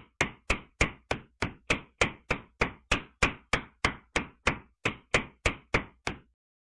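Rapid, evenly spaced knocks, about three a second, as a short PVC pipe is tapped down into dry soil. They stop about six seconds in.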